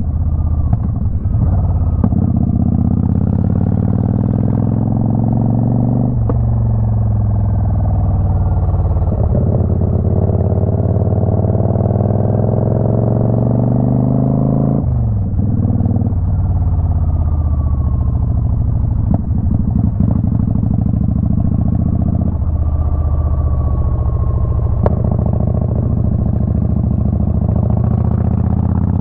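A twin-cylinder motorcycle engine running under way, its note climbing steadily as the bike pulls through a gear and changing abruptly at a few gear shifts, about 2, 6, 15 and 22 seconds in.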